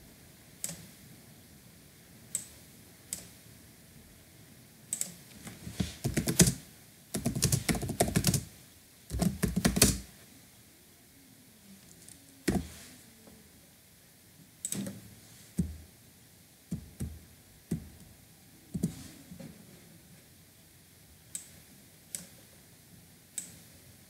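Typing on a computer keyboard: scattered single keystrokes, with a quick run of fast typing in the middle.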